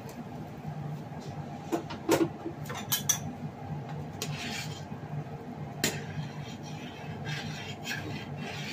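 A utensil stirring noodles in a metal pot of broth, clinking sharply against the pot several times, loudest about two seconds in, with short swishing stirs between. A steady low hum runs underneath.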